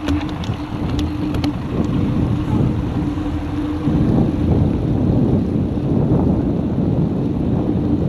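Wind rushing over the microphone of a bicycle pulling away from a stop, growing louder about four seconds in as the bike gathers speed. A few light clicks and a steady hum come early on.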